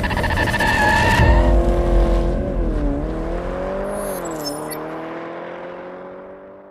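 Car sound effect: tyres screeching with engine noise, then an engine-like drone that wavers in pitch and fades out.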